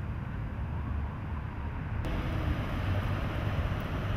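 Outdoor street noise during a snowstorm: a steady low rumble, with a brighter hiss joining suddenly about two seconds in.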